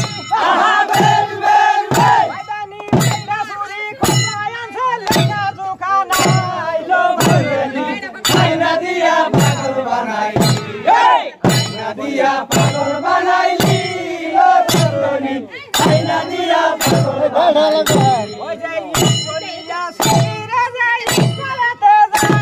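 Crowd of men singing and chanting a boithamaro (boat-race) song together, over a steady, sharp beat about twice a second.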